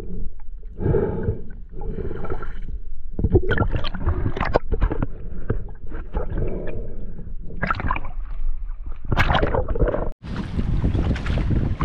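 Muffled water gurgling and sloshing around the camera in irregular bursts. About ten seconds in, the sound cuts out sharply and gives way to steady wind on the microphone over open water.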